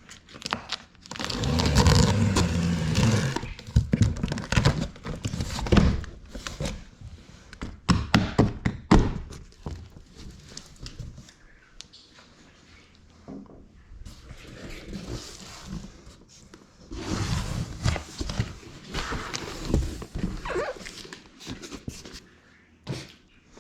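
Unboxing noises: packaging rustling and tearing, with repeated knocks and thuds as the bike and its parts are handled.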